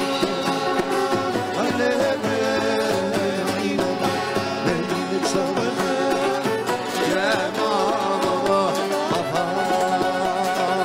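Live Middle Eastern-style folk music from a small ensemble: violin, acoustic guitar and keyboard with hand drum, playing steadily.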